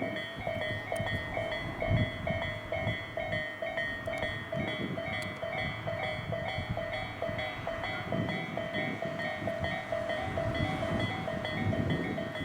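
Japanese level-crossing warning bell ringing in a steady, rapid repeating pattern while an electric train passes the crossing with a continuous rumble and occasional sharp clacks.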